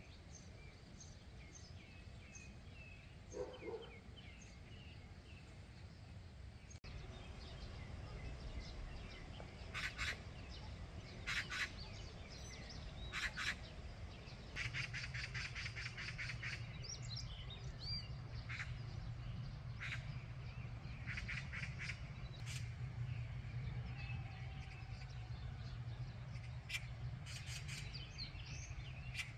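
Outdoor birdsong: faint high chirping at first, then loud harsh bird calls repeated in short quick series from about ten seconds in. A low steady hum comes in about halfway through.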